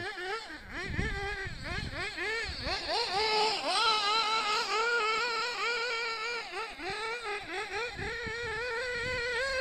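Hobao Hyper 7 1/8-scale RC buggy's motor revving, its high pitch swinging up and down over and over as the buggy is throttled through tight, sliding circles on loose dirt.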